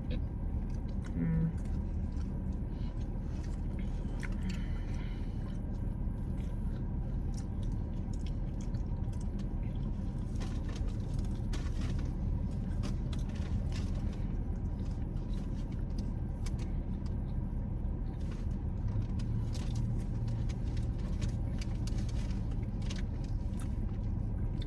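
Steady low rumble of a car heard from inside the cabin, with scattered small clicks and rustles over it.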